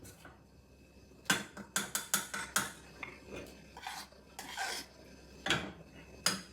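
A spoon stirring and scraping macaroni and cheese in a pot: after a quiet first second, a run of short scrapes and knocks against the pot, with two sharper knocks near the end.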